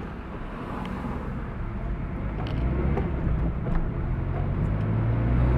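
Car engine and tyre noise heard from inside the cabin while driving, with a low engine hum that grows louder toward the end.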